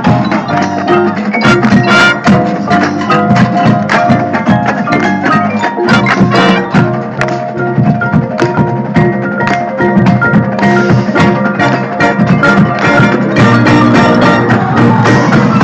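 Marching band percussion playing: mallet keyboards such as marimba and xylophone over drums, in a dense run of quick strikes.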